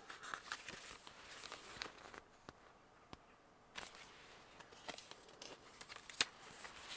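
Faint handling of paper and card: light rustles and swishes of glossy pages and packaging, with scattered small clicks and taps and one sharper click about six seconds in.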